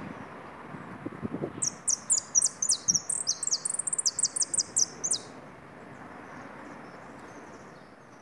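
Caged saffron finch (jilguero), a 'pitador' singer, giving a fast song of sharp, high, down-slurred notes for about three and a half seconds, starting about a second and a half in, over steady low background noise.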